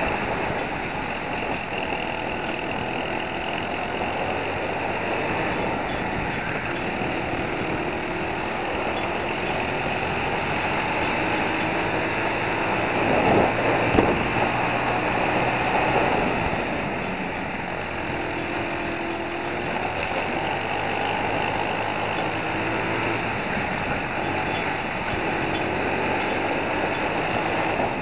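Onboard sound of a World Formula kart's Briggs & Stratton four-stroke engine running at racing speed, its revs rising and falling through the corners, with wind rushing over the camera's microphone. About halfway through, the sound briefly swells and there is a sharp knock.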